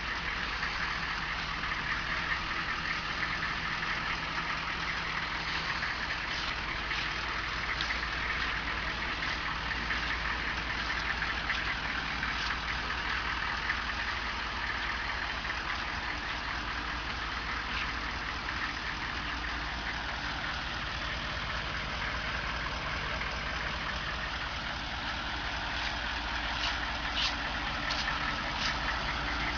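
6.5-litre turbo diesel V8 of a 1999 Chevrolet C2500 pickup, idling steadily through a single 5-inch smokestack exhaust.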